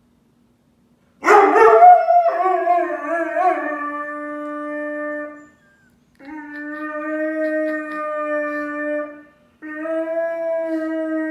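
Weimaraner howling in three long cries, the first starting loud and rough about a second in before settling into a steady held note, the next two steady. The dog is crying at being left behind when its companion is taken out for a walk: separation distress.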